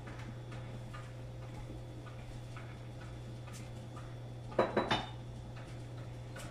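Dishes and utensils clinking a few times, with a quick cluster of three sharper clatters about four and a half seconds in, over a steady low hum.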